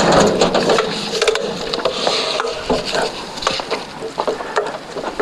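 Frontier OS27 portable sawmill head being pushed back by hand along its steel track: a rolling, rattling sound for about the first second, then a scatter of metallic clicks and knocks.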